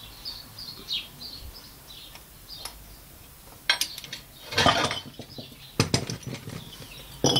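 Sharp metallic clinks and knocks, four or five of them in the second half, some ringing briefly, as a hydraulic bottle jack under a tractor is worked and let down. Faint high chirps come before them.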